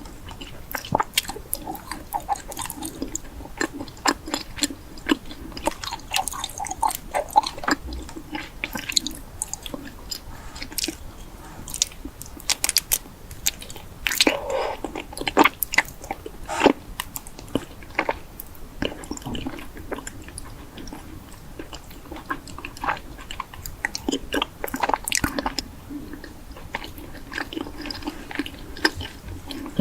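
A person chewing and biting food: an irregular run of many short, sharp clicks and wet smacks, several a second.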